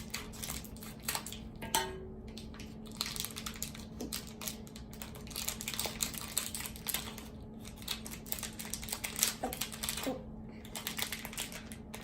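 Plastic toy blind-bag wrapper crinkling as it is handled and opened, in irregular spells of quick crackles.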